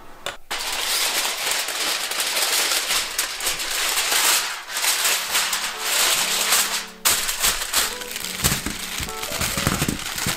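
Sheet of aluminium foil being pulled out, crinkled and torn off the roll, a long dense crackling rustle that stops sharply about seven seconds in. Then small potatoes poured from a mesh bag tumble onto the foil-lined pan in a run of light knocks.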